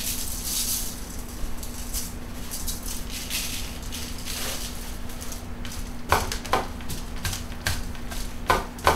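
Coarse kosher salt shaken from a cardboard box onto a raw beef roast in a foil-lined pan, the grains hissing out in repeated pours. After about six seconds this gives way to a series of sharp taps and rustles as the meat is handled on the foil.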